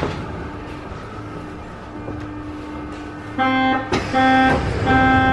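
Soviet-built 81-717 metro train standing at the platform with a steady electrical hum, then about three and a half seconds in its door-closing warning signal sounds three buzzing beeps, the last one longer.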